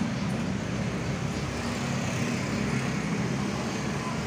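Steady background ambience: a low rumble under an even hiss, with no distinct events.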